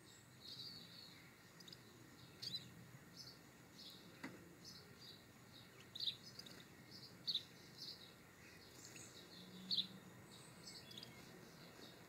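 European goldfinches giving short, high chirping calls, scattered and irregular, a few louder than the rest. One soft tap about four seconds in.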